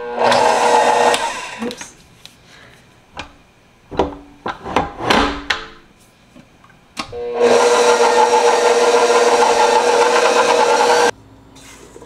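KitchenAid Professional 5 Plus bowl-lift stand mixer running with its wire whip in a steel bowl, whipping cream. It runs briefly at the start, there are a few metal clunks as the bowl is raised and locked, and then it runs again for about four seconds and cuts off suddenly.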